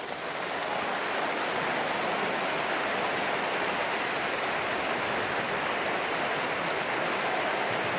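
Large concert-hall audience applauding, swelling over the first second and then steady.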